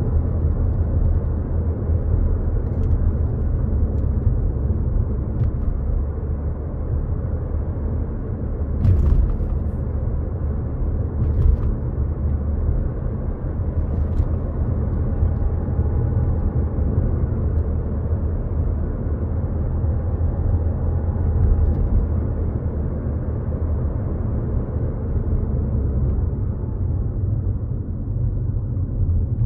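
Car interior noise while driving: a steady low rumble of engine and tyres on the road, heard inside the cabin, with a few brief clicks.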